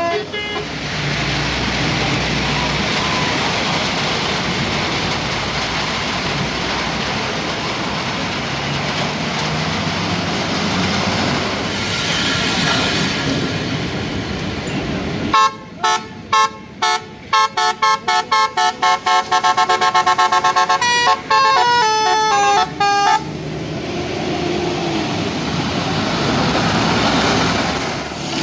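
A bus's basuri horn, the Indonesian multi-tone 'telolet' horn, playing a quick melody of short notes and a few held ones for about eight seconds, starting about halfway in. Before and after it there is steady noise from passing traffic.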